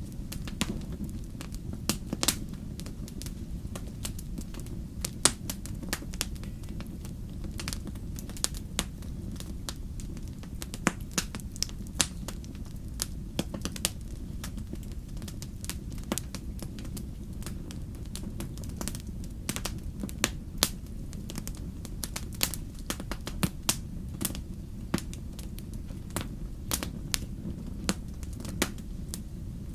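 Campfire burning, crackling with many irregular sharp pops over a steady low rumble.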